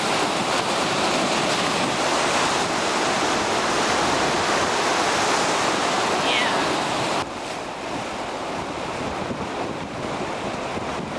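Lake Michigan surf breaking and washing over shoreline rocks, with wind buffeting the microphone. About seven seconds in the sound drops abruptly to a quieter wash of wind and waves.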